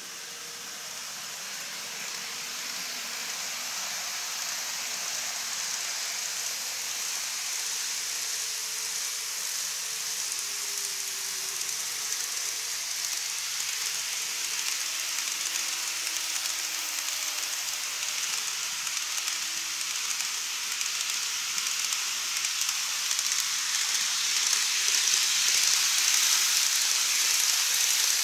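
N-gauge model trains rolling along plastic elevated track, a steady hissing rattle of wheels on rail. It grows louder as the trains come closer and is loudest near the end, as the Odakyu Romancar 60000 MSE set passes.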